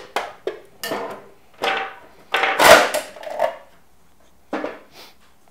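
Flathead screwdriver prying the case off a Baratza Virtuoso coffee grinder: sharp clicks as the case is levered free, then scraping and rattling of the case being worked loose and lifted off, loudest about two and a half seconds in, with a couple more knocks near the end.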